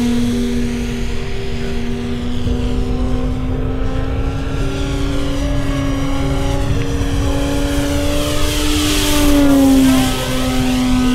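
Electric motor and propeller of a radio-controlled aerobatic model airplane whining in flight: one steady tone with overtones that climbs slowly, grows loudest, then drops in pitch about nine and a half seconds in.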